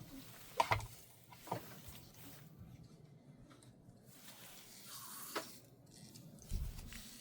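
Light bench handling noises: a few small clicks and taps, a soft rustle about five seconds in, and a low thump near the end.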